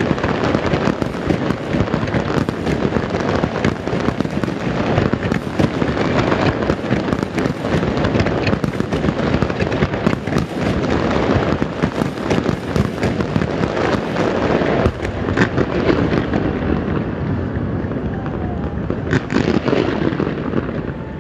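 Fireworks display: a continuous barrage of many overlapping bangs and bursts, easing off a little in the last few seconds.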